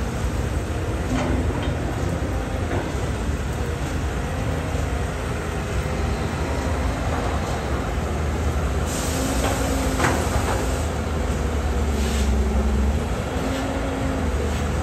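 Caterpillar 320 hydraulic excavator's diesel engine running under load, with a deep steady rumble and an engine tone that rises and falls as the hydraulics work the arm and swing. A few sharp knocks come as soil and rock are dumped into the dump truck's steel bed.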